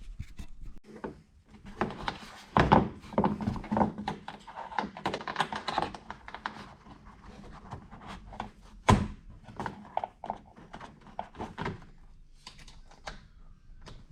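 Irregular knocks, clicks and clatter of hand work on car body parts, with two louder thuds about two and a half seconds and nine seconds in.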